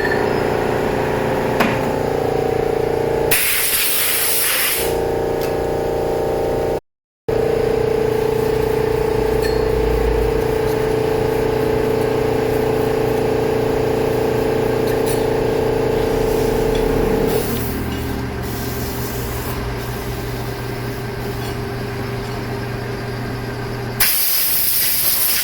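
Metal lathe running steadily, with a held hum, as it skims the friction face of a car air-conditioning compressor's clutch flat. It turns quieter about two-thirds of the way through, and two short hissing blasts of air cut in, about three seconds in and near the end.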